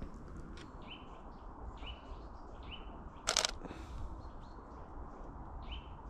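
Common chaffinch giving a series of short, high calls, the bird agitated. About three seconds in, a Canon 90D DSLR shutter fires a brief burst of clicks, the loudest sound.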